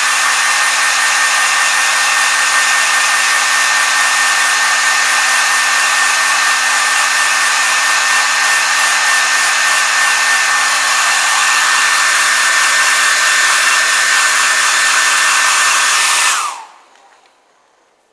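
Handheld hot-air blower running steadily with a whine, heating the heat-cure filler compound in a leather tear so it hardens. It switches off about sixteen seconds in, the whine falling as it winds down.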